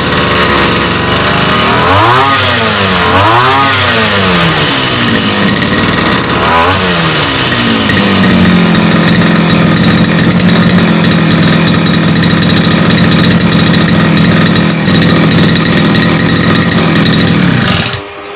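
Small two-stroke brush cutter engine of about 28 cc, driving a propeller through a flexible shaft. It is revved up and down three times in the first seven seconds, then held at a steady speed, and the sound cuts off abruptly near the end.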